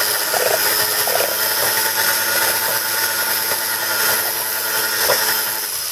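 Electric hand mixer running at a steady speed, its two wire beaters whirring through thin egg-and-sugar batter in a mixing bowl.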